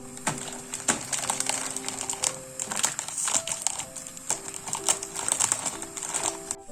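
Soft background music with held notes, over a run of quick light clicks and taps from kitchen work.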